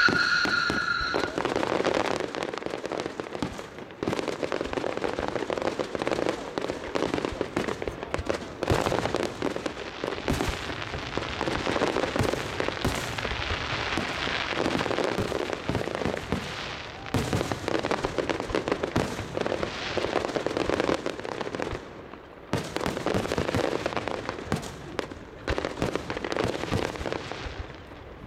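Aerial fireworks display: a dense, continuous stream of bangs and crackles from bursting shells, easing briefly about 22 seconds in.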